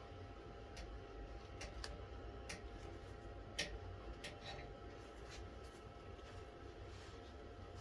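Faint, scattered small clicks and light scratching over a low steady hum, with one sharper click about three and a half seconds in.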